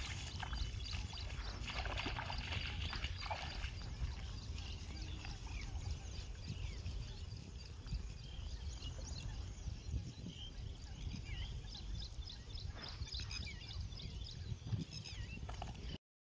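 Feet splashing and sloshing through the shallow water of a flooded paddy field, over a steady low rumble. Birds chirp in short rising calls over the middle of the stretch. The sound cuts off suddenly near the end.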